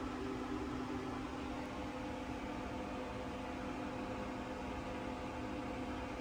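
Steady machinery hum inside a Cassiopeia sleeper-car compartment: a low drone with a few fixed tones over an even hiss.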